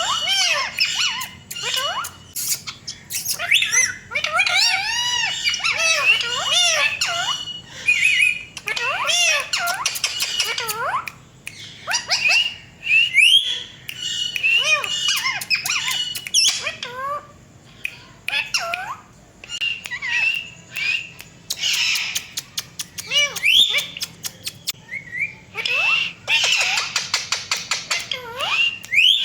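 Ringneck parakeets squawking and calling, with many short whistled calls that sweep up and down in pitch, harsh screeches and chatter, in quick succession with brief pauses.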